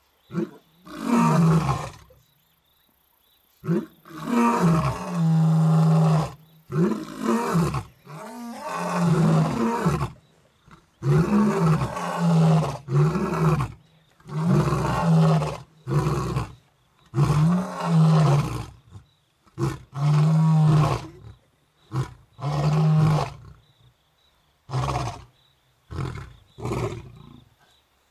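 Male lions roaring in a long bout: several long, deep roars followed by a string of shorter grunting roars that fade out near the end. The guide takes this repeated roaring for the males calling to females.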